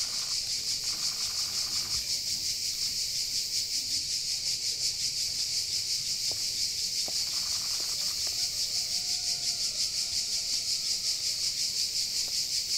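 A steady, high-pitched insect chorus chirring in quick, even pulses, with a few faint clicks.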